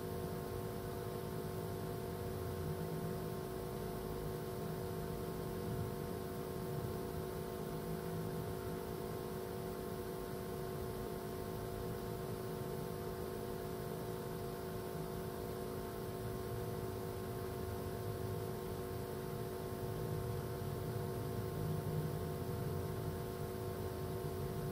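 Steady electrical hum made of several constant tones over a background hiss, with no distinct clicks or knocks.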